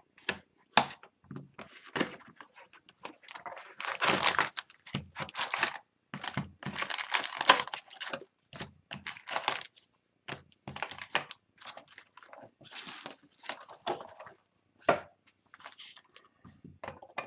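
A sealed cardboard box of hockey card packs being slit with a utility knife and torn open, then the packs' wrappers crinkling and rustling as they are lifted out and stacked. Irregular tearing and rustling, loudest about four and seven seconds in.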